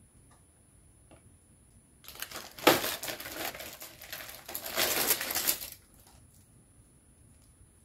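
Clear plastic wrapping crinkling and rustling while a metal rotating spice rack is handled and turned, for about four seconds in the middle, with one sharp clink of metal early in the handling.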